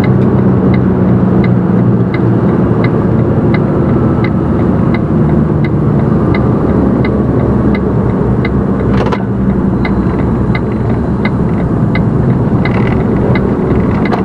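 Inside a semi-truck's cab: the diesel engine running steadily while the turn-signal indicator ticks about twice a second. A brief hiss about nine seconds in.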